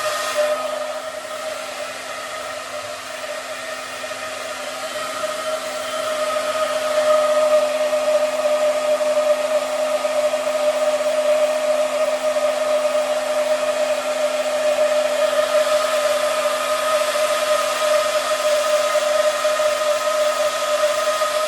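Hand-held hair dryer running steadily: an airy rush with a steady motor whine. It is somewhat quieter for the first few seconds and louder from about six seconds in.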